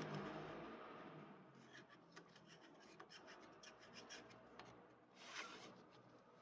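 Faint handling sounds: light scattered clicks and scraping, with a short rubbing swish about five seconds in.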